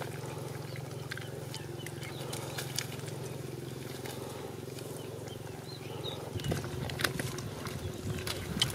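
Hands digging in wet mud, with scattered soft clicks that grow busier over the last couple of seconds, over a steady low hum.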